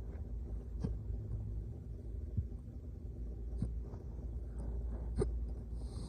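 A person hiccuping: four short, sudden hiccups about a second and a half apart, over a low steady rumble.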